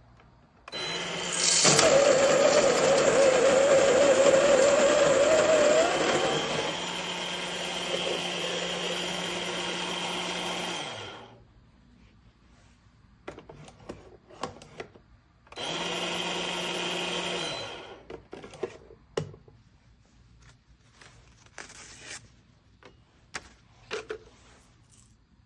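Electric burr coffee grinder grinding beans fine: the motor starts with a loud grinding of the beans for about five seconds, then runs quieter until it stops about eleven seconds in. A second short run of about two seconds follows, then light clicks and taps.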